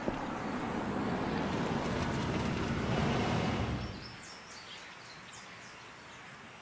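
A steady, even rumble of outdoor noise, like a vehicle passing, that cuts off abruptly about four seconds in. Quieter outdoor ambience with a few faint bird chirps follows.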